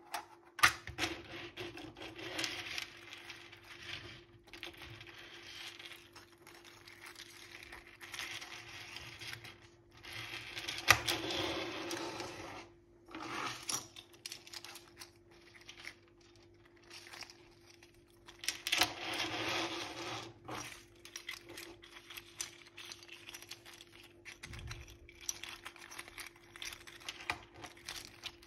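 Handling of 3D-printed articulated plastic figures on a textured spring-steel build plate: irregular clicks, rattles and scrapes as the jointed segments flex and knock together and slide over the sheet, with a few louder clacks. A faint steady hum runs underneath.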